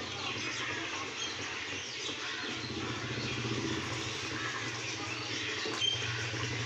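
Birds chirping in the background over a steady low hum.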